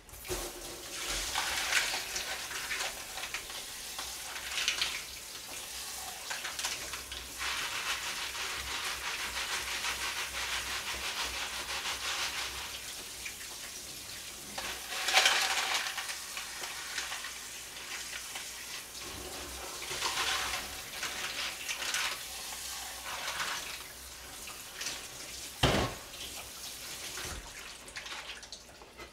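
A pot of clam and anchovy broth boiling hard on a gas stove, giving a steady bubbling hiss that swells and eases, with an occasional clatter; the loudest comes near the end.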